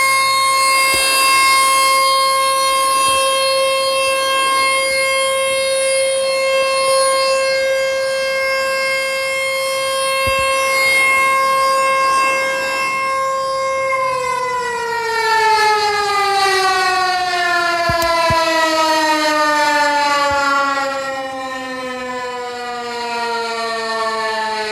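American Signal T-128 tornado siren sounding a steady single tone. About halfway through it winds down, its pitch falling steadily as the rotor slows.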